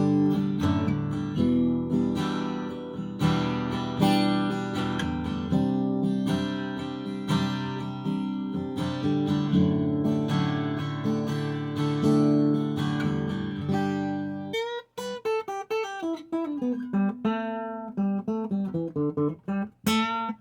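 Taylor Big Baby acoustic guitar being strummed in chords, changing about fifteen seconds in to single picked notes. It is recorded through the Sony A6400 camera's built-in microphone.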